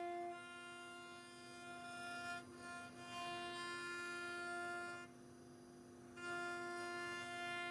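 Background music: sustained string-like notes that change every second or two over a steady drone.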